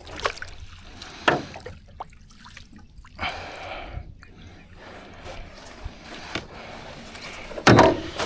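Water splashing and dripping with scattered knocks and handling noises as a hooked channel catfish is brought in at the boat's side, and a louder burst of noise near the end.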